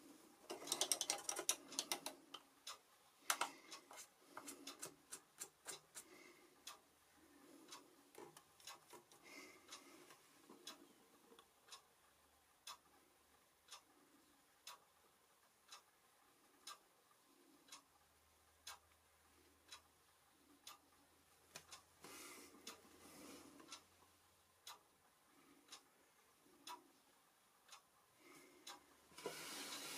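Quiet room with a string of faint sharp ticks, about one or two a second. Short stretches of soft scratchy rubbing come near the start, about two-thirds of the way through and at the end, from a fine watercolour brush working on paper.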